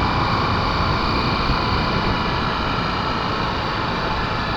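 Honda XR250 Tornado's single-cylinder four-stroke engine running at a steady cruise, mixed with wind and road noise on an action camera's microphone.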